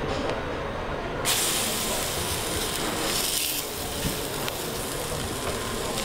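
Duck burger patty going into a hot frying pan and sizzling. A sudden loud hiss starts about a second in and eases after a couple of seconds into a steady, quieter sizzle.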